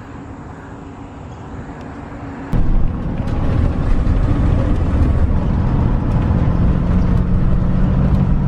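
Vehicle road and engine noise heard from inside the cab while driving, a loud low rumble that starts abruptly about two and a half seconds in after a quieter outdoor background. A steady low hum joins it from about six seconds in.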